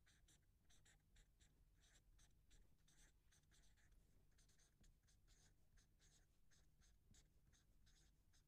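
Near silence with the faint scratching of someone writing: a run of short, irregular strokes, two or three a second.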